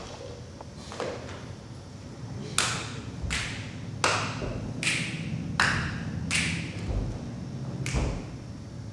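A series of about eight sharp knocks. After a faint first one, six come in a run at roughly even spacing, a little under a second apart, and a last one follows near the end.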